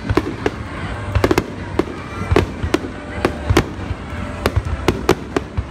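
Aerial firework shells bursting in a rapid, irregular string of sharp bangs, two or three a second, over a steady low rumble.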